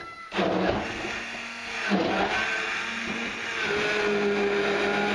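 Stick blender puréeing carrot and orange soup in a tall plastic beaker. The motor starts again just after a brief dip and runs steadily, its hum changing pitch a couple of times as it works through the liquid.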